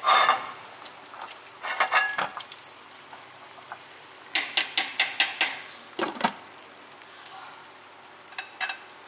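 Metal kitchen utensils clinking and scraping against a pot and bowls in short bursts while pig offal is stirred and reblanched in hot water. A quick run of clinks comes about four and a half seconds in, over a steady low hiss.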